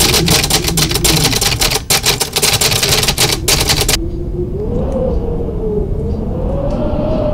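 Typewriter keys clacking rapidly for about the first four seconds, as the text is typed out. Then a low rumble with a slowly rising and falling tone under it.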